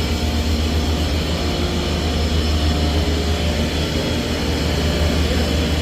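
Heavy machinery running steadily: a loud, unbroken low drone with several steady tones above it.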